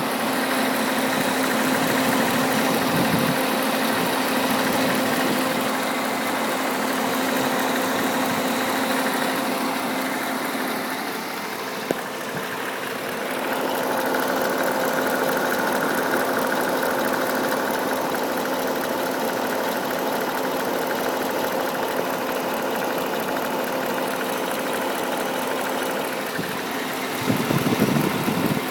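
2008 Pontiac G8 GT's 6.0-litre L76 V8 idling steadily under an open hood; the owner is fairly sure it has the typical LS lifter tick. A brief louder noise comes near the end.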